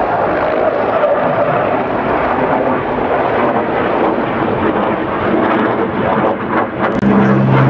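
Sikorsky CH-53 heavy transport helicopter lifting off and climbing away in a bank: loud, dense rotor and turbine noise. Near the end it gives way to a steady low drone.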